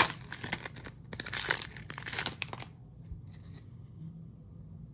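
Trading card pack wrapper being ripped open and crinkled, with a sharp snap at the start; the tearing and crackling stop about two and a half seconds in.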